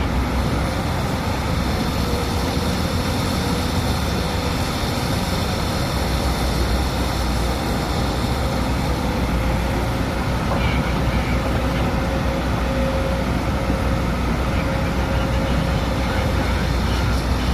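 Heavy diesel engines running steadily: a Hyundai HX340SL excavator at work loading a Hino 500 dump truck.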